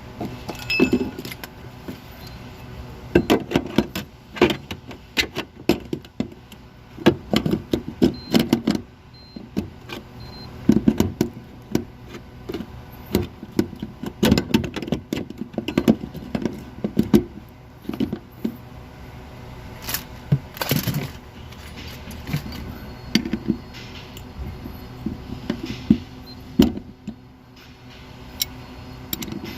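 Irregular metallic clinks, knocks and rattles of hand tools and parts being handled during car repair work, some coming in quick clusters, over a steady low hum.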